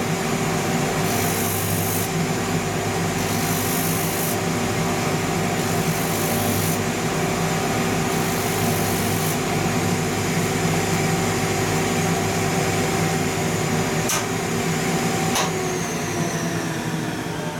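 A shoe finishing machine's motor runs with its rotary sandpaper disc spinning. A leather outsole is pressed against the disc in repeated passes, each adding a hiss of sanding. Near the end come two clicks, and the motor winds down with falling pitch.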